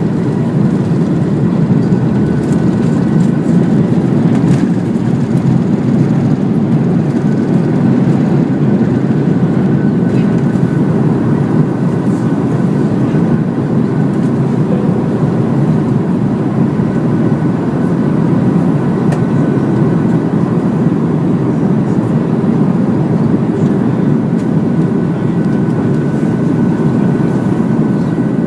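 Airbus A330 jet aircraft running steadily: a loud low rumble with faint steady whining tones above it, neither rising nor falling.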